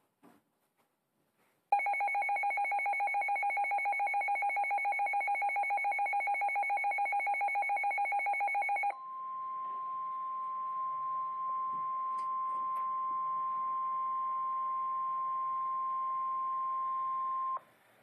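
Midland HH54 weather radio alarm: a fast-pulsing, two-pitch electronic beep for about seven seconds. Then the radio's speaker carries the NOAA Weather Radio 1050 Hz warning alarm tone, one steady tone over faint static, which cuts off near the end. The tone marks an urgent warning, here a tornado warning, about to be read.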